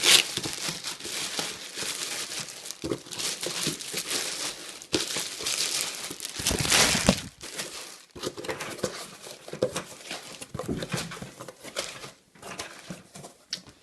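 Packaging crinkling and rustling as a parcel is unpacked by hand, with a louder stretch of crumpling about six to seven seconds in.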